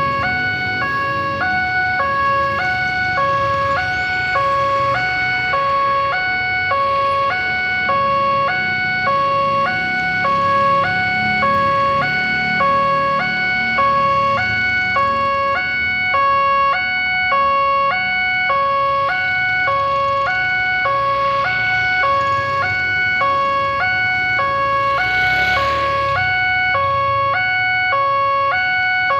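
Railway level-crossing warning siren sounding: an electronic two-tone alarm alternating high and low about once a second, over a steady high tone.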